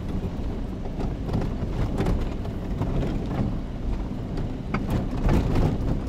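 Vehicle driving up a rough, stony dirt track, heard from inside the cab: a steady low engine and tyre rumble with knocks and rattles as it jolts over the rocks, several close together about five seconds in.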